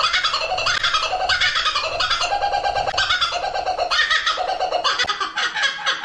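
Laughing kookaburra giving its laughing call: a loud, fast, unbroken run of repeated notes.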